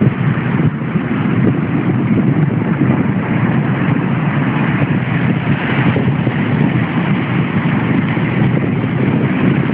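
Rough sea surf crashing and churning over breakwater boulders and a pebble shore: a loud, steady rush with a low rumble, wind buffeting the microphone.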